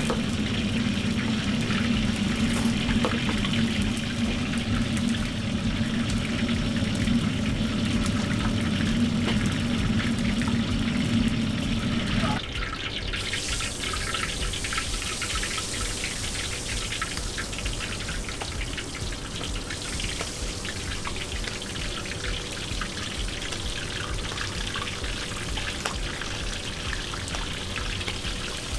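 A steady low rumble until about halfway, then spoonfuls of oyster-cake batter frying in hot oil in a wok, with a dense crackling sizzle.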